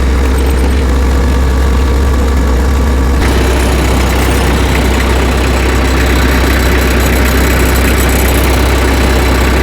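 Tractor engine idling steadily with a deep, constant hum. About three seconds in, more high-pitched noise joins over it.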